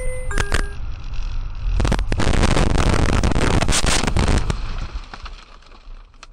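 Car crash heard from inside the car: steady road noise and a few short electronic beeps, then about two seconds in a loud impact and a long stretch of crashing and crunching that lasts over two seconds before dying away.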